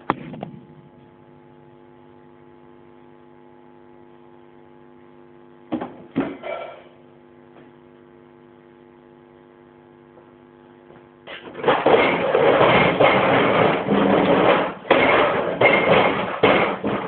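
Steady electrical hum from live amplification with a few knocks near the middle, then a little past halfway the band starts playing abruptly: a loud, dense wall of noise-rock sound.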